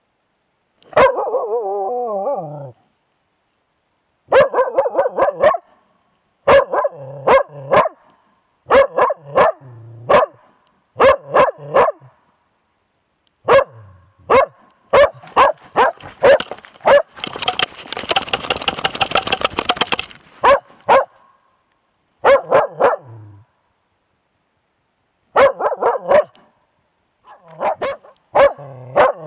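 Young moose-hunting dog bay-barking at a moose cow and calf, heard very close from a camera on its own harness: short series of three or four barks every couple of seconds, with a wavering drawn-out bark at the start and a longer, faster run of barks past the middle. This is the steady bay bark that holds the moose in place and tells the hunter where it stands.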